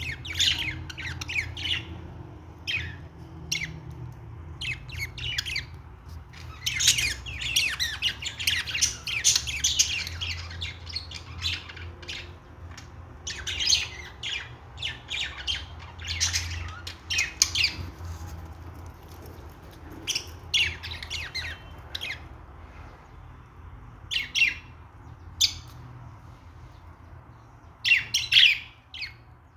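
Budgerigars chattering and squawking in irregular bursts of quick high chirps, with a steady low hum beneath.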